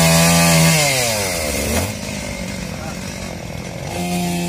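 Two-stroke chainsaw held at high revs, then its pitch falls away as the throttle is let off about a second in. It revs up again near the end.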